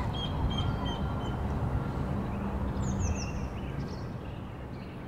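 Outdoor ambience: a steady low rumble with a few small birds chirping, in a quick run of short high chirps about three seconds in.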